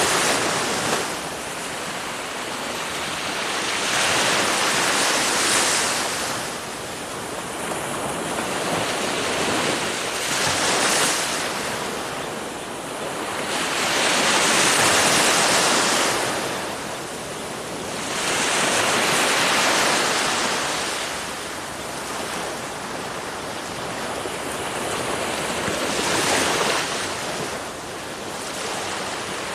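Ocean surf: waves breaking, the rush of water swelling and falling back every four to six seconds.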